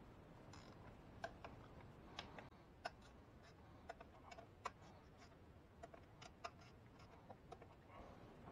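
Faint, irregular light clicks and taps, about fifteen of them spread unevenly, over low room noise: small parts being handled during engine work.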